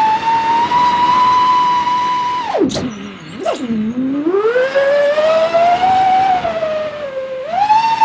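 FPV quadcopter's brushless motors whining at a high, steady pitch. About two and a half seconds in, the pitch plunges as the throttle is cut, then climbs back gradually and rises sharply again near the end.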